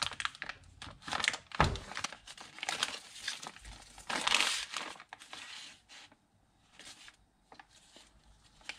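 Thin clear plastic bag crinkling and rustling as a new engine vacuum pump is unwrapped from it, with a thump about a second and a half in. After about five seconds it dies down to a few light clicks of handling.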